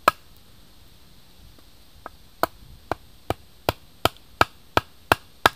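Knife being batoned into a split log: a piece of wood knocks on the back of the blade, once at the start and then, after a pause of about two seconds, about ten sharp knocks at two to three a second. The blade is chopping out a notch for the hole of a split-log rocket stove.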